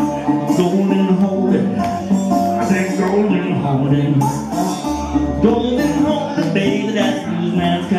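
A man singing with a resonator guitar played along in steady strokes.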